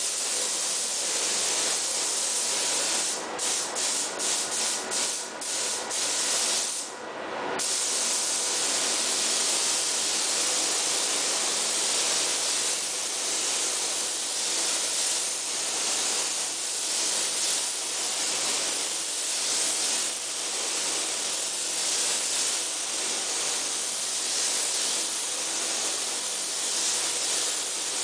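Compressed-air paint spray gun with a gravity-feed cup hissing steadily as paint is sprayed. The hiss cuts off briefly several times around three to five seconds in and once for longer about seven seconds in, then runs on unbroken.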